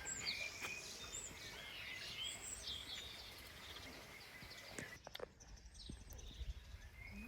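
Small birds chirping now and then over quiet outdoor ambience; the chirps stop about five seconds in, leaving a low rumble.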